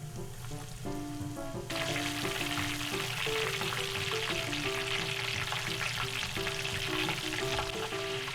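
Breaded hard clams (hamaguri) deep-frying in hot oil: a dense crackling sizzle that starts suddenly about two seconds in and keeps going steadily.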